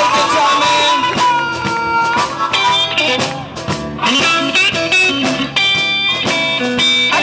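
Live blues band playing: electric guitar with a harmonica playing held and short notes over it.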